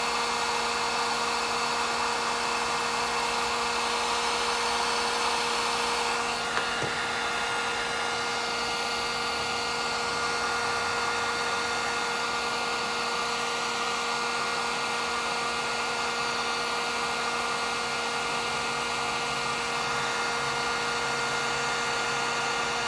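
Electric dual-temperature heat gun running steadily: its fan blows hot air with a constant motor hum while it shrinks heat-shrink butt connectors on wiring.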